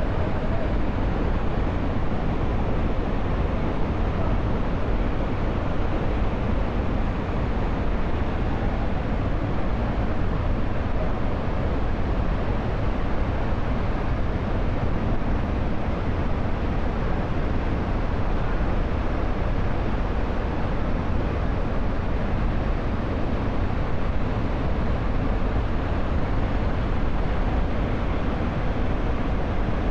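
Waterfall: falling water making a steady, unbroken rush, heaviest in the low end.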